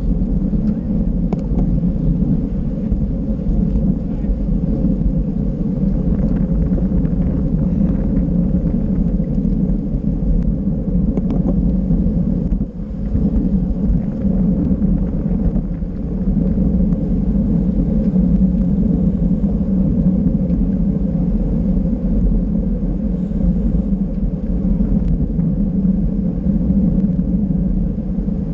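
Steady wind rush and road rumble buffeting the microphone of a camera riding along on a racing bicycle at speed, with a few faint ticks.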